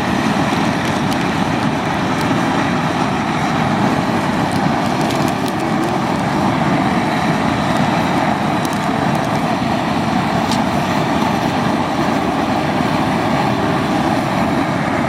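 High-pressure propane burner running at full flame under a crawfish boil pot, a loud steady rushing, bringing the water back up to a boil after the crawfish went in.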